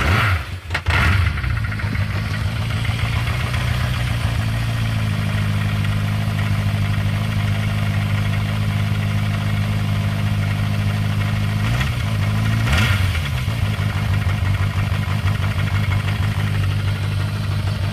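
1986 Yamaha Radian's air-cooled inline-four engine, just fired up cold on the choke, idling with a clatter that sounds like a diesel; it is revved briefly twice about two-thirds of the way through. The owner takes the knock for a rod knock.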